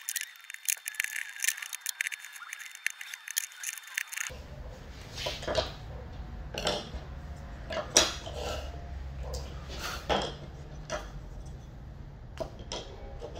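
A bench chisel paring a small wooden block in quick strokes, a rapid run of crisp clicks. Then, after about four seconds, small wooden pattern pieces knock and tap as they are set down and fitted together on a wooden workbench, over a low steady hum.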